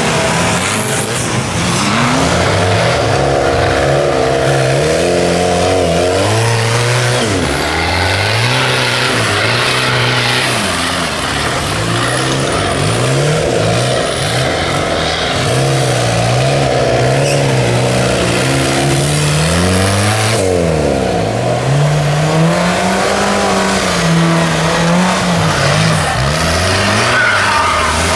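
Off-road 4x4 race vehicles' engines revving hard under load, their pitch rising and falling again and again as they push through grass and mud. The sound changes abruptly about twenty seconds in.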